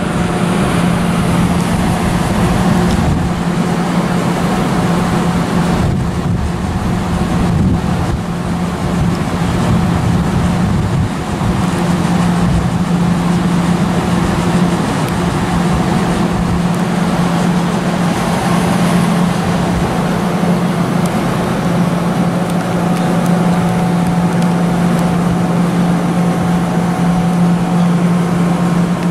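Amtrak Silver Star passenger train moving past at close range: a steady low hum over continuous train rumble, with a few brief knocks in the first ten seconds.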